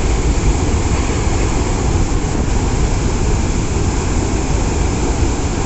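A large waterfall's falling water: a loud, steady rush with a deep rumble underneath.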